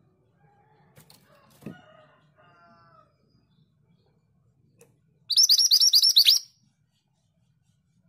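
Female scarlet minivet (mantenan) calling: a burst of about eight quick, high, down-swept notes lasting about a second, a little past the middle, with fainter sounds before it.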